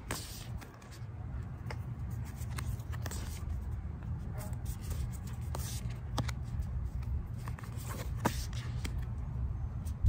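Tarot cards being slid and flipped through by hand, giving scattered small clicks and snaps of card stock over a steady low rumble.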